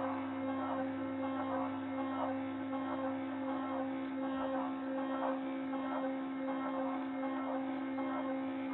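Spindle motor of a DIY wooden-frame GRBL CNC mini router running with a steady hum, with a rougher sound coming and going about twice a second as the machine works.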